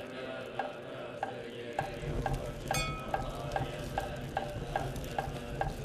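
Buddhist ritual percussion: a wooden fish knocked steadily, the knocks quickening from about two a second to about three, with a bowl bell struck once near the middle and left ringing. A low steady drone joins about two seconds in.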